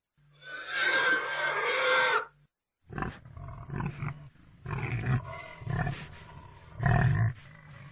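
Pig squealing loudly for about two seconds, then, after a brief pause, a string of short grunts.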